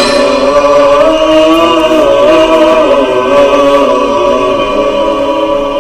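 Unaccompanied vocal music, in the style of a nasheed-type programme intro: voices holding long, slowly wavering notes.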